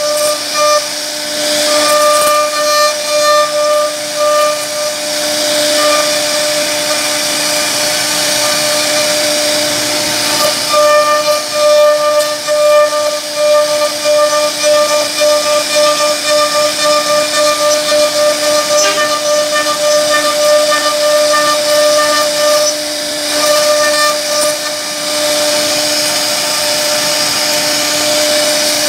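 CNC router spindle running with a steady high whine while its bit cuts a carved relief pattern into wood, with a cutting hiss that rises and falls as the bit moves through the wood. The upper part of the whine fades briefly a few times.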